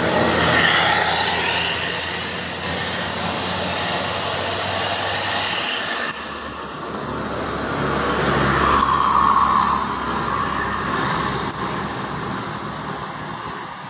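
Road traffic: heavy vehicles driving past close by, engine and tyre noise swelling about a second in and again around the middle.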